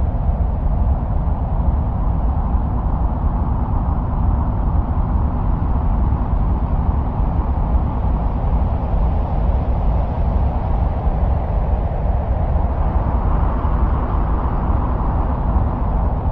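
Steady, low, rumbling wind-like noise presented as the sound of Mars, with a slight brightening in the middle range about thirteen seconds in.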